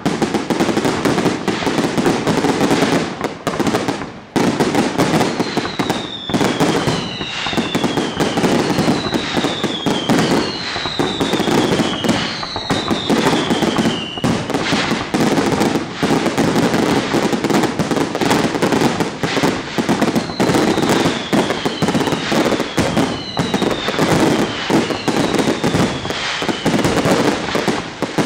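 Professional fireworks display: a dense, unbroken barrage of aerial shell bursts and crackling stars, with two runs of falling whistles.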